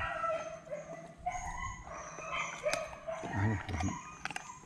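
Golden retriever puppy whining in short, wavering calls while chewing carrot, with a few sharp crunches.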